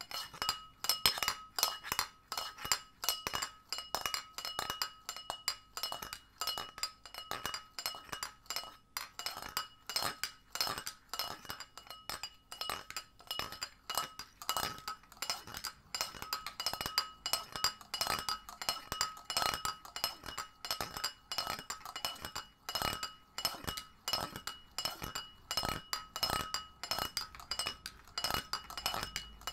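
Pint glass tapped and clinked over and over in quick, irregular strikes. Each strike rings at the same glassy pitch.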